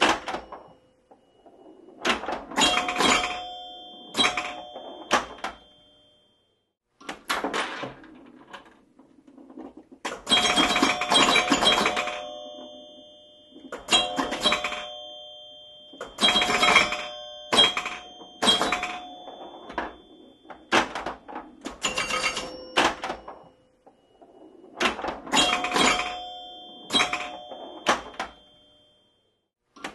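Pinball machine in play: groups of rapid mechanical clacks and hits with held, ringing bell tones, coming every few seconds with short pauses between.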